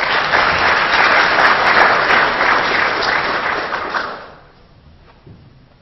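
Audience applauding: clapping that rises quickly, holds for about four seconds and then fades out.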